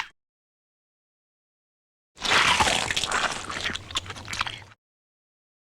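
Cartoon sound effect of wet, squishy eating: a burst of munching and chewing starts about two seconds in and lasts about two and a half seconds, with many small wet clicks, and tails off before it stops.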